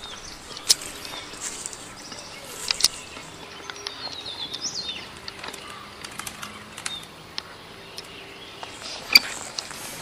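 Forest birds chirping against a steady outdoor background, with a run of high chirps about halfway through. A few sharp clicks stand out above them, the loudest near the start and near the end.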